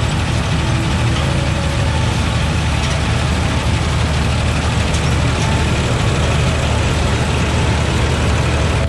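Tractor diesel engine running steadily under load, driving a tractor-mounted mini combine harvester as it cuts standing wheat.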